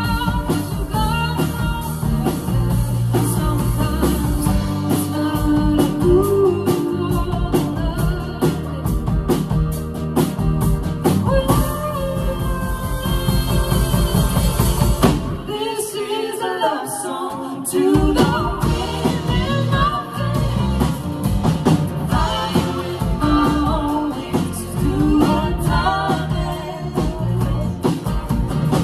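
A live rock band playing a song, with a woman singing lead over electric and acoustic guitars and a drum kit. About halfway through, the drums and low end drop out for around three seconds, then the full band comes back in.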